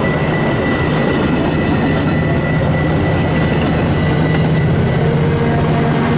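Metra diesel commuter train running through the station: a steady engine drone and rolling rail noise, with a thin steady high tone above it.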